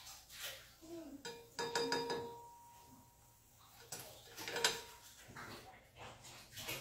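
Nylon slotted spatula knocking and scraping against a stainless steel frying pan of oil while tortillas are worked and lifted out. A quick clatter of strikes with the pan ringing comes about a second and a half in, and a single sharper knock, the loudest, a little after four and a half seconds.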